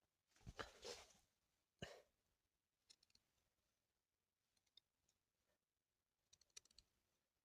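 Near silence with scattered faint clicks and rustles, a little louder in the first two seconds and again about six and a half seconds in.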